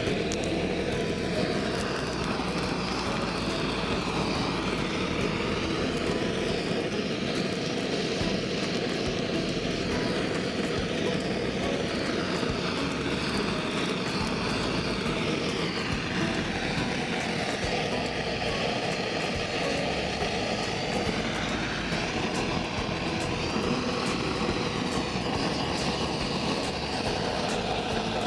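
Propane gas weed burner's flame burning with a steady rushing noise as it is held on weeds.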